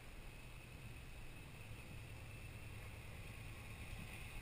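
Jeep Grand Cherokee WK's engine running faint and steady at low revs as it crawls slowly over a dirt rut.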